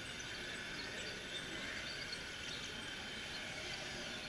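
Steady ambient background noise with scattered faint, short high chirps.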